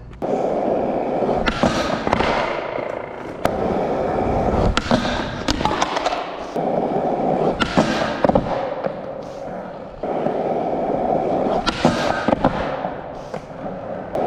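Skateboard wheels rolling in several runs, each starting abruptly, with sharp clacks and thuds of the board hitting the ground or a bench as the rider goes for a trick.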